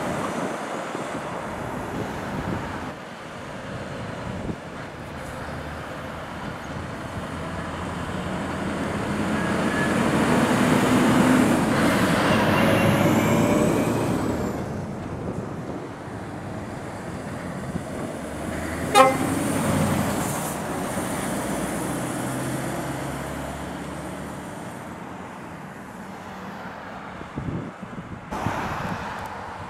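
Heavy trucks drive past, their engines swelling as they come close and fading as they go. Partway through comes one short horn toot.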